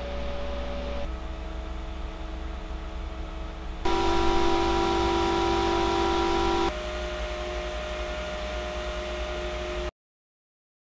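120 mm PC cooling fans running, played as a run of short noise samples that switch about every three seconds: each is a steady whoosh with a hum. It begins with an EK Vardar at 2000 rpm. The loudest stretch, from about four seconds to nearly seven, is an EK Vardar at 3000 rpm. The sound cuts off abruptly just before ten seconds.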